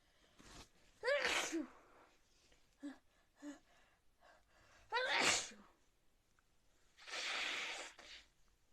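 Two sneezes about four seconds apart, each a short high-pitched voiced cry that breaks into a burst of breath. Two small sniffs fall between them, and a breathy rush of air lasting about a second comes near the end.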